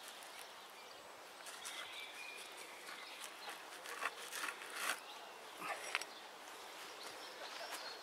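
Quiet outdoor ambience with faint bird chirps and a few scattered light crunches and taps.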